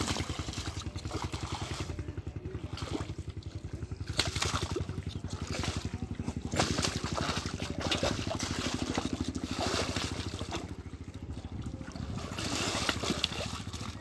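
Muddy shallow water splashing and sloshing in repeated bursts as hands grope through it and a large catfish thrashes, over a small engine running steadily in the background.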